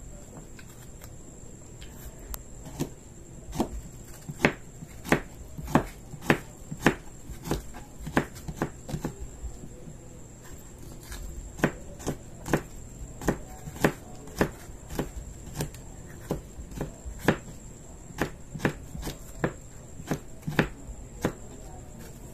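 Knife chopping food on a cutting board in slow, even strokes, about one and a half a second. There are two runs with a short pause about ten seconds in.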